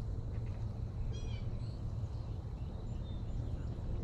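A bird calls once about a second in, a quick run of short high notes, over a steady low rumble.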